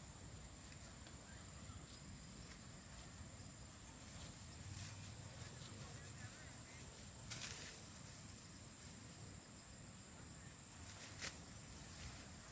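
Steady high-pitched insect drone, with a few sharp clicks about five, seven and eleven seconds in.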